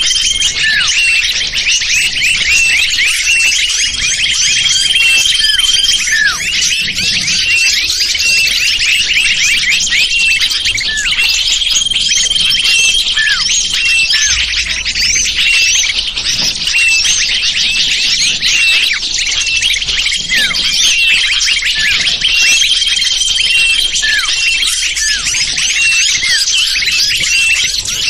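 Small-bird lure call (suara pikat): a dense, loud chorus of many small birds chirping and twittering without a break. A high, steady whistled note held for a second or two comes back every few seconds, with short falling notes beneath.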